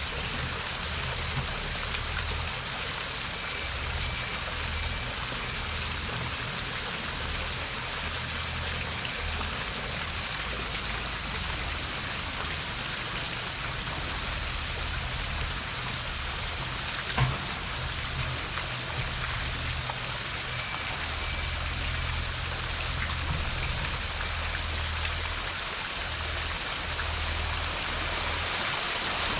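Water from a fountain jet near a waterfall splashing steadily, a rain-like patter over a low rush. There is one sharp tap about 17 seconds in, and the splashing grows a little louder near the end.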